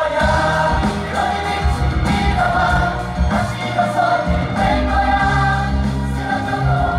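A group of young men singing a song together into microphones over loud amplified backing music with a heavy bass line, heard live through a hall's sound system.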